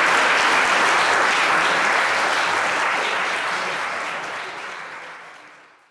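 Audience applauding at the end of a song, fading out steadily over the last few seconds to silence.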